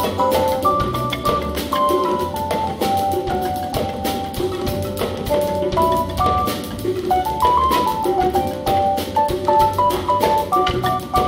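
Live band playing an instrumental passage: a drum kit and hand drums keep a steady, busy beat with bass-drum pulses, under a melody of short notes stepping up and down.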